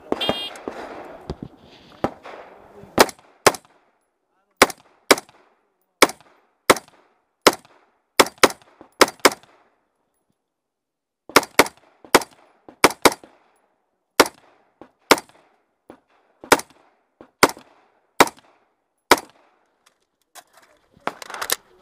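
Semi-automatic rifle firing a USPSA stage: a short shot-timer start beep, then some thirty sharp rifle shots in singles and quick pairs, with a pause of about a second and a half near the middle.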